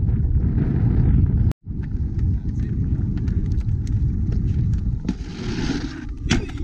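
Wind rumbling on the microphone aboard a small boat on choppy water, broken by a brief cut-out about a second and a half in. Near the end comes a short rush of hiss, then a couple of sharp knocks.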